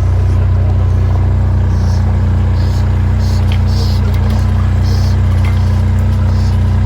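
Car engine running with a steady low rumble, the car crawling along at walking pace.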